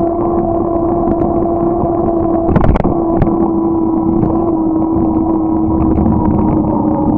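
A vehicle's motor droning at one steady pitch while riding, over road and wind rumble, with a single loud thump about two and a half seconds in.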